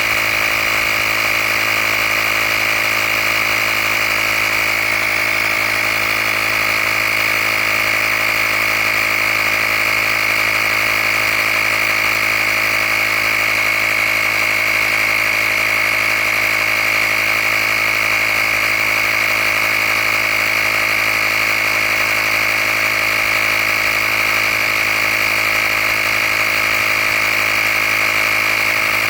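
Handheld cordless tire air compressor running steadily while inflating a tire toward a preset pressure: a high whine over a low motor hum.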